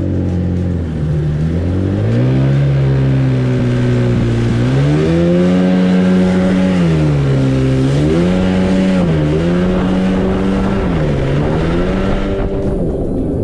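Jet ski engine accelerating away and running at speed, its pitch rising and falling several times with the throttle, over a steady hiss; the hiss drops back shortly before the end.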